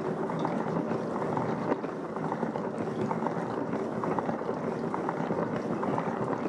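Rovin Ecospin manual spin washer being cranked hard by hand: a steady whir of the spinning drum with many small rattles and knocks, as the unit has no balancer and rocks while it spins.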